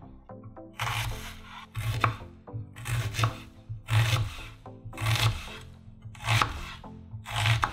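Chef's knife slicing through a raw onion half onto a bamboo cutting board, about one stroke a second. Each stroke is a crisp crunch through the onion layers that ends in a sharp knock of the blade on the board.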